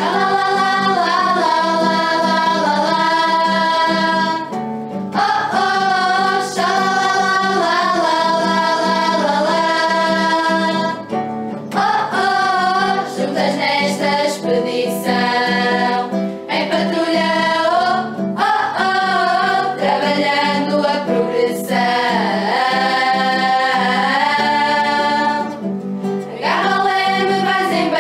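A group of female voices singing a camp hymn together over acoustic guitar.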